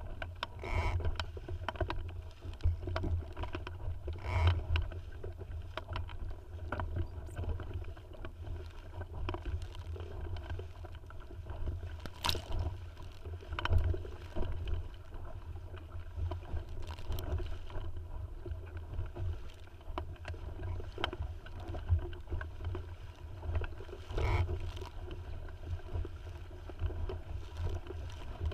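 A small sailing dinghy underway: water splashing and lapping against the hull, over a constant low wind rumble on the microphone, with a few sharper splashes or knocks about twelve, fourteen and twenty-four seconds in.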